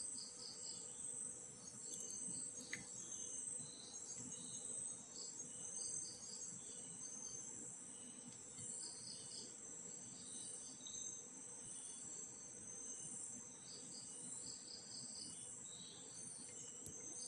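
Crickets chirping faintly in a steady, high, pulsing trill, with shorter chirps coming and going.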